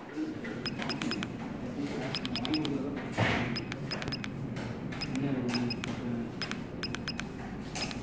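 Keys being pressed on a handheld billing terminal's keypad, each press giving a short high click-beep, in quick runs of two to four presses. A louder thump comes about three seconds in.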